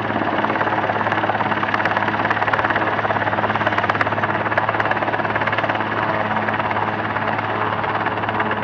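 Helicopter hovering, its rotor beating in a rapid, steady pulse over a constant low hum.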